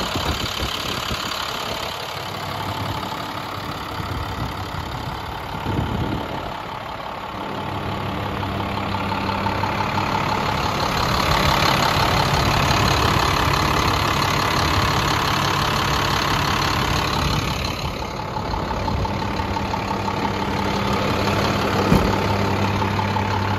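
International MaxxForce DT 7.6-litre turbo diesel idling steadily in a short school bus; the seller says it sounds great. About seven seconds in, its sound settles into a steadier low hum.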